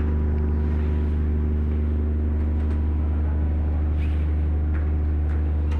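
Steady low drone of a large car ferry's engines, with a few steady hum tones above it and no change in level.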